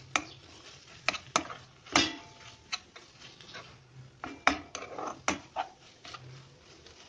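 A spatula scraping and knocking against a non-stick kadai while stirring grated raw papaya in cream, in irregular clicks and scrapes a few times a second.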